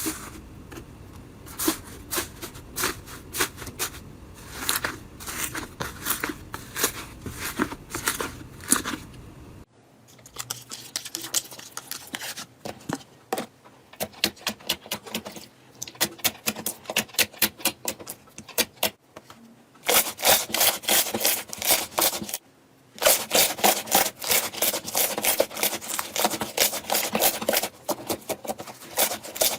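Slime being squeezed and poked: rapid crackling and popping clicks with squishing. The sound changes abruptly about a third of the way in and again about three quarters in, with a brief pause.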